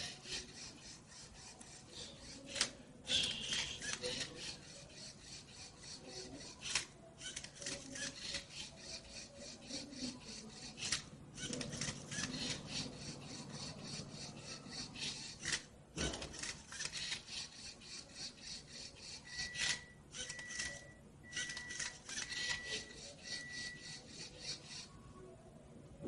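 LEGO Rubik's cube solving robot at work: its motors whir in short stop-start moves as it grips, turns and flips the cube, with the plastic layers scraping and rasping. A row of about five short, even beeps sounds roughly three-quarters of the way through.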